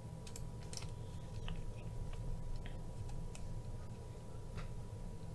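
Faint, scattered small metallic clicks as a precision screwdriver bit turns a small screw into the backspacer of a titanium knife handle. The screw is binding in tight threads.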